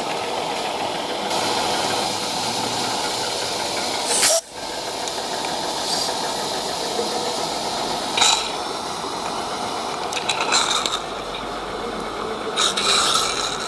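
A 16mm-scale live-steam locomotive standing with a steady hiss of steam. There is a short, loud burst about four seconds in, and more short bursts of hiss later on.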